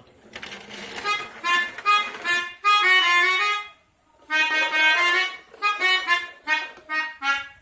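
Toy pianika (melodica) playing the 'telolet' bus-horn tune: a phrase of short reedy notes ending on a longer held note, a short pause about four seconds in, then a second phrase of quick notes.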